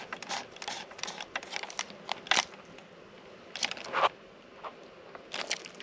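Screwdriver work refitting a small metal retaining plate onto the rear of a Kenwood head unit's metal chassis: irregular light clicks and scrapes of metal on metal, with sharper clicks about two and a half and four seconds in.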